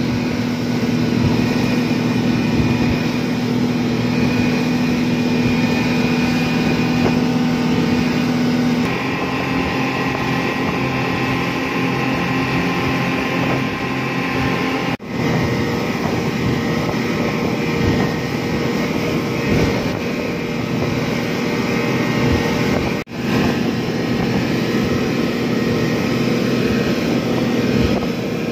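Twin Yamaha 200 hp four-stroke outboard motors running at speed, a steady engine drone over the rush of water and spray from the wake. The engine note shifts about nine seconds in, and the sound cuts out briefly twice.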